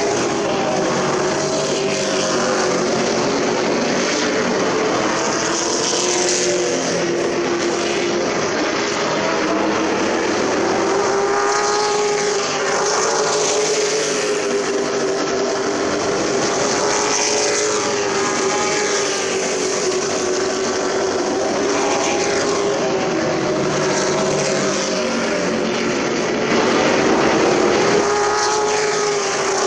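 Super Truck race engines running hard around a short oval. Several engine notes overlap, and pitch and loudness swell and fall every few seconds as the trucks come past and move away.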